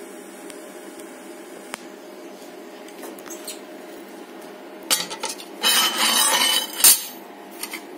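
Thin stainless-steel sheet clinking and knocking as it is handled on a metal work surface, over a steady hum. A louder, noisy stretch of about a second comes near the end and ends in a sharp knock.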